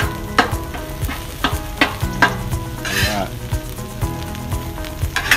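Metal spatula clacking and scraping on the steel top of a Blackstone flat-top griddle several times as scrambled eggs are chopped and mixed into fried rice, over a steady sizzle of the rice frying.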